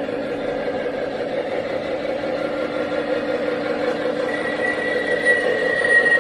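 O gauge three-rail model train running steadily along the track, its wheels and motor making a continuous rolling rumble. A high, thin steady whine joins about four seconds in.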